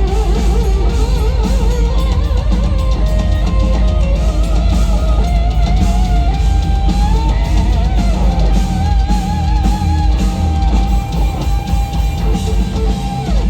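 Live instrumental heavy metal: a lead electric guitar plays a melody with wide vibrato over pounding drums and bass, settling into one long held, wavering note in the second half.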